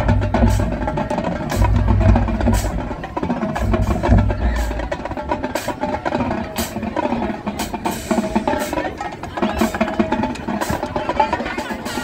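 Marching drumline playing a cadence: snare and tenor drums with many sharp clicks, and heavy bass drum hits in three stretches during the first five seconds, lighter playing after.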